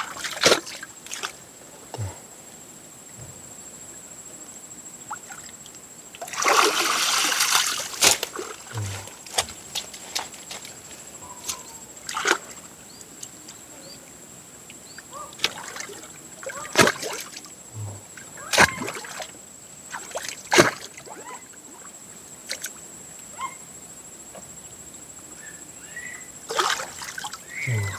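Wet, waterlogged earth being worked by hand: scattered sharp strikes into mud every few seconds, with splashing and sloshing, and a louder rushing splash about six seconds in. A faint steady high tone runs underneath.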